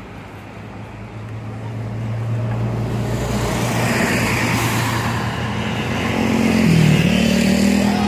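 A road vehicle's engine running close by, a steady low hum that grows louder and shifts up in pitch about seven seconds in.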